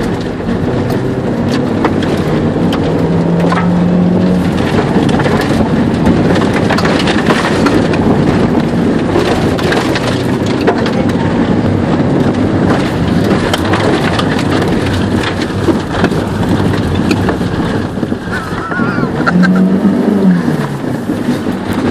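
Škoda Felicia's engine revving up and down, heard from inside the cabin as it is driven hard along a rough dirt track, with constant knocks and rattles from the bumpy surface.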